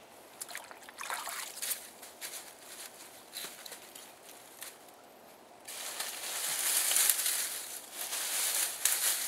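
Hands rustling and crackling dry leaves and sticks while piling debris onto a trap set, with shallow creek water sloshing around the feet. Light scattered rustles and clicks at first, then a louder, steadier rustling from about halfway through.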